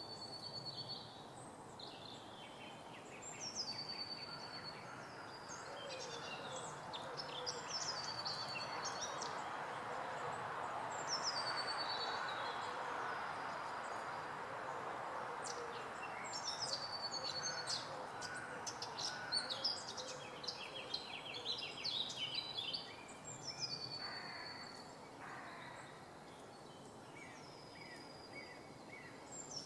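A bird repeats a short high call that sweeps down and then holds steady, about every three to four seconds. Through the middle comes a run of sharp, irregular taps or ticks. A steady rushing background noise swells and fades.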